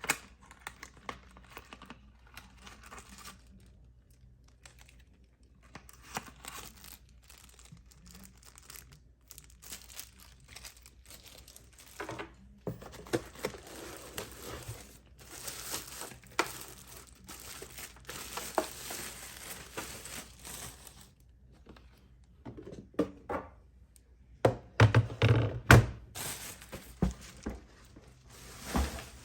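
Keyboard packaging being handled and opened: crinkling, tearing and rustling with scattered thunks, and a cluster of louder knocks near the end.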